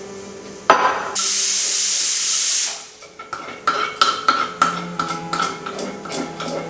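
Kitchen cooking sounds: a knock, then a loud steady hiss for about a second and a half that stops abruptly, followed by a run of quick clicks and taps of a utensil against a pot.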